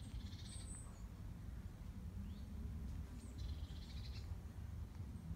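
A small songbird singing two short, fast trilled phrases, each under a second long, about three seconds apart, over a steady low rumble.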